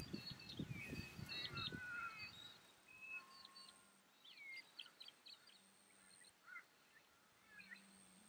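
Wild birds calling: many short chirps and calls, loosest and busiest in the first half and again around the middle. Low rustling fades out in the first couple of seconds, and a faint steady high whine runs through much of it.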